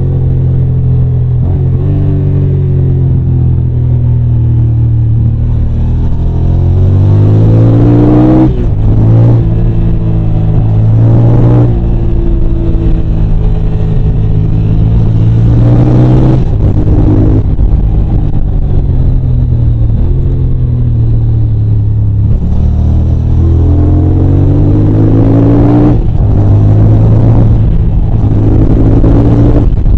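Yamaha TDM 900's parallel-twin engine pulling hard while being ridden, the pitch climbing as it revs up and dropping sharply at each upshift, several times through the gears, with an easing-off stretch in the middle.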